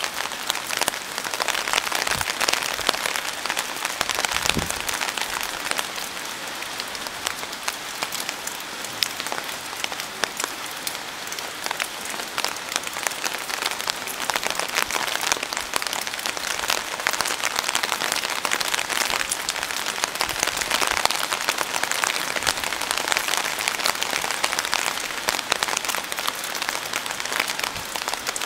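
Steady rain falling, a dense patter of many small drop impacts.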